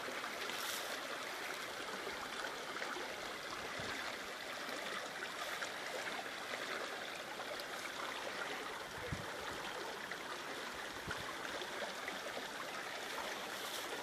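Small taiga stream running: a steady, even rush of flowing water.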